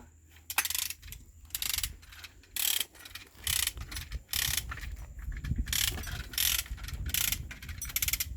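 Ratchet wrench being worked in short runs of quick clicking strokes, about ten bursts, one after another, over a steady low hum.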